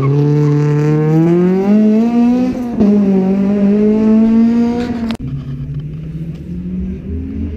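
Rally car engine accelerating hard, its pitch rising, falling once at a gear change about two and a half seconds in, then climbing again. About five seconds in it cuts off abruptly to another car engine running lower and steadier, which rises near the end.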